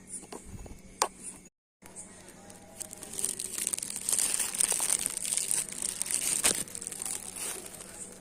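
Packaging crinkling and tearing as a gift is unwrapped by hand: a few sharp clicks, a moment of silence, then a dense run of crackling from about three seconds in until near the end.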